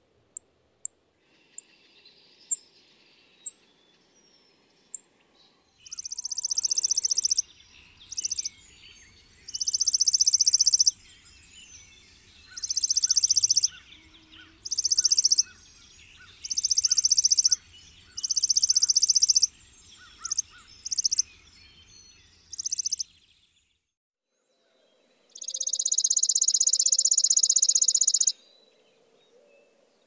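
Chipping sparrow: a few single sharp chip notes in the first five seconds, then a run of dry, rapid trills on one high pitch, each about a second long and repeated every second or two, ending with one longer trill of about three seconds near the end. Fainter bird twittering lies beneath the trills.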